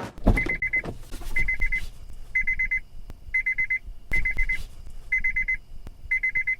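Electronic alarm beeping: a half-second burst of rapid high beeps repeating about once a second, over a low rumble with a few sharp knocks.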